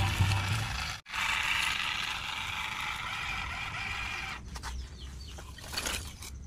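Background music for about a second, cut off abruptly, then the small electric motor and plastic gearbox of a toy RC dump truck whirring steadily as it drives on sand. About four seconds in the whirring gets quieter and uneven, with a few short scrapes.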